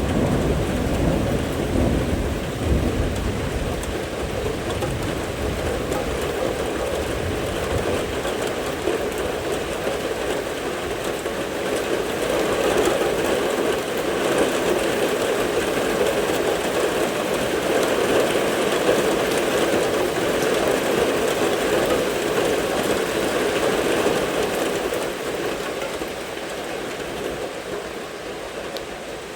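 Rain pouring down during a thunderstorm. A low thunder rumble dies away in the first few seconds, and the rain eases off near the end.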